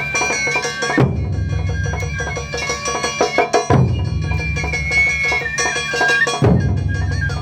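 Japanese taiko ensemble playing live: fast, dense drumming with a heavy big-drum stroke three times, about every three seconds, under a high held melody line.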